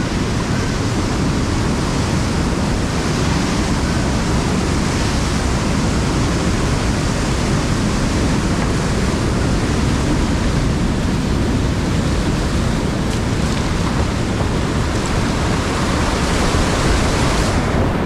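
Whitewater of a steep creek rapid rushing loudly and steadily.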